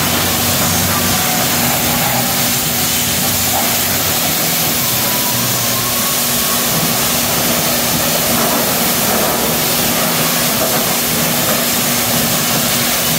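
High-pressure spray wand at a self-serve car wash jetting water onto a motorcycle: a steady, loud hiss of spray with a steady low hum underneath.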